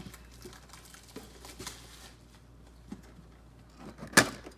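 Soft crinkling and handling of metal Pokémon card tins and their plastic packaging, with one sharp clack of the metal tin being grabbed about four seconds in.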